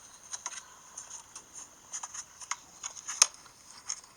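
An iPhone's speaker giving out an irregular crackling, clattering noise, a 'gasha gasha' of sharp clicks, with the loudest a little after three seconds in. It is an unexplained glitch that the owner could not stop.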